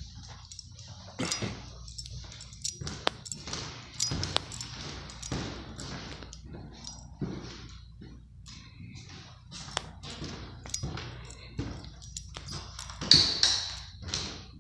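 Footsteps on a hardwood floor in bare, empty rooms, irregular knocks about once a second, with a louder knock and scrape near the end.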